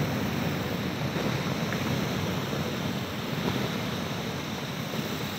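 Steady rumble of a landslide, rock and debris pouring down a steep cliff face, easing slightly toward the end.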